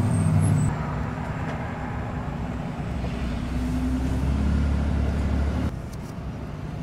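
Cab-interior sound of a Ram 5500's Cummins turbo-diesel engine and road noise while driving, a steady low drone and rumble. The drone grows louder about three to five seconds in, then the sound drops off abruptly near the end.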